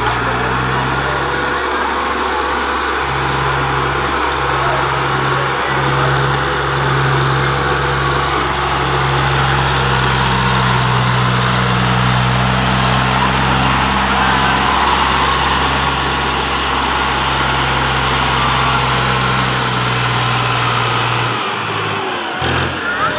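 Tractor diesel engine running steadily as the tractor and its loaded trailer drive closer. About 21 seconds in, the low engine note drops away and changes.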